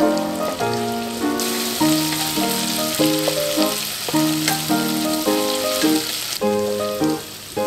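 Meat sizzling in oil and sauce in a non-stick wok as it is stirred with a wooden spatula. The sizzle grows loud about a second and a half in and fades back near the end. Piano background music plays throughout.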